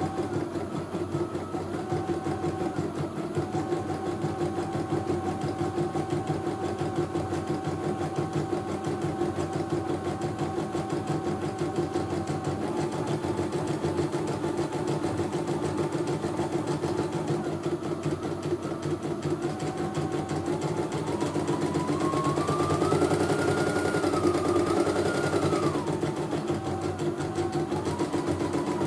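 CNY E900 computerized embroidery machine stitching a design: a rapid, even run of needle strokes under a steady motor hum. A higher whine steps up and down in pitch as the hoop moves, climbing higher and a little louder for a few seconds late on.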